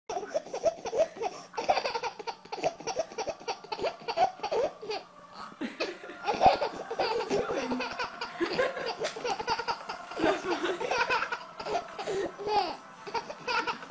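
A baby laughing in quick, repeated bursts of pitched laughter.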